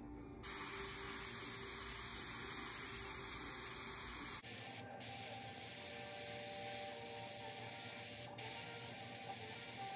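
Airbrush hissing as it sprays paint, starting about half a second in. A little before halfway the hiss changes tone, and it breaks off briefly twice.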